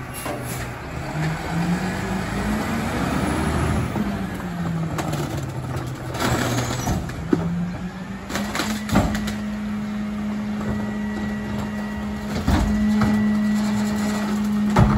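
Rear-loader garbage truck's engine speeding up, dropping back, then speeding up again and holding a steady higher speed through the second half. A few sharp bangs of recycling being slammed come over it.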